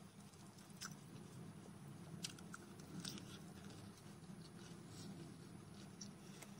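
Faint eating sounds: a few scattered soft clicks of chewing and of fingers picking food off a plate, over a low steady hum.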